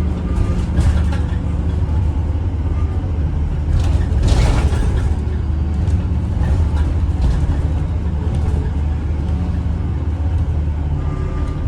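A bus's engine and drivetrain running with a steady low rumble, heard from on board. A short hissing burst comes about four seconds in.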